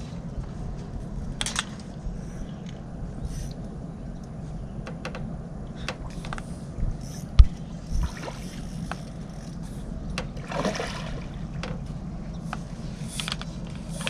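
Water sloshing against the dock under a steady low rumble, with scattered small clicks and knocks of handling. There is one sharp thump about seven seconds in, the loudest sound, and a smaller one just after.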